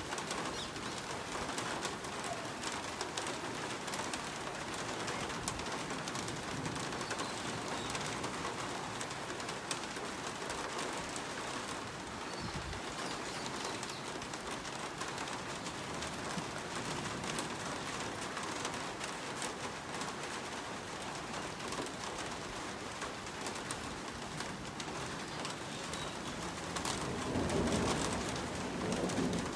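Hailstorm: hail and rain striking surfaces as a dense, steady patter with many sharp individual hits. A low rumble swells up near the end.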